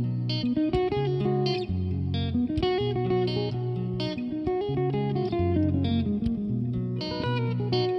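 Background music: an instrumental with plucked guitar notes over a steady bass line.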